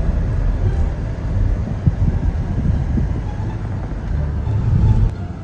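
Low, uneven rumble of a moving car, road and engine noise, cutting off abruptly just before the end.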